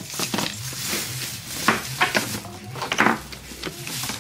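Clinks and knocks of small hard items, such as bottles and packets, being handled and packed at a shop checkout counter, with several sharp clacks among them.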